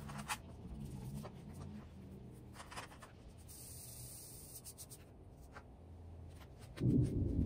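Soft brushing and rubbing of 2 mm EVA foam sheet as hands press and smooth a contact-cemented foam feather flat on a tabletop, with a few light taps. A louder low rumble comes in near the end.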